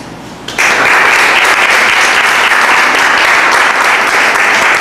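Audience applauding, starting suddenly about half a second in and keeping up a steady, loud clapping.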